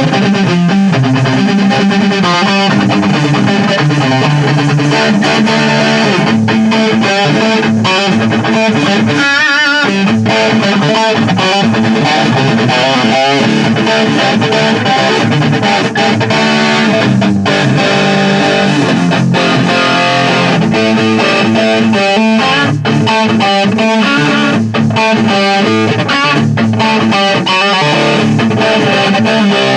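Electric guitar played without pause through a Mesa/Boogie Throttle Box, a high-gain distortion pedal.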